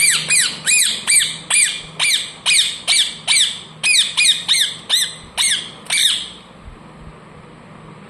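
Parrot squawking in a rapid run of about fifteen high calls, two or three a second, each rising and falling in pitch, stopping about six seconds in.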